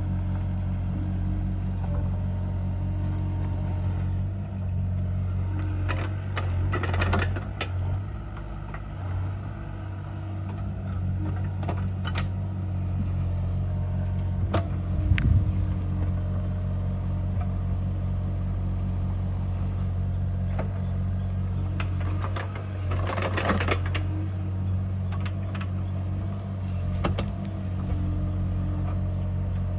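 Bobcat E37 mini excavator's diesel engine running steadily, with scattered short clanks and rattles from the machine working.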